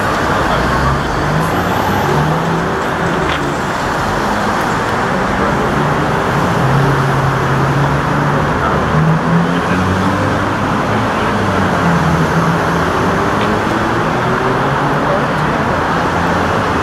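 Steady street traffic noise, a continuous rumble and hiss of vehicles and engines.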